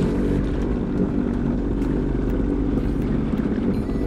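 Sea-Doo jet ski engine running steadily.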